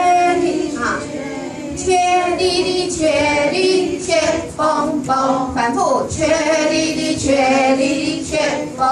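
A woman singing a simple song into a handheld microphone over a loudspeaker, in short phrases with held notes.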